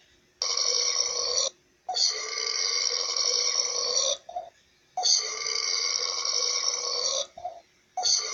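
A person burping three long, drawn-out burps at a steady pitch, the middle one the longest, with short little burps in the gaps between them.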